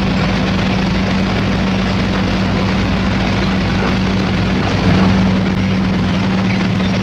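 Heavy diesel engine of construction machinery running steadily with a constant hum, briefly louder about five seconds in.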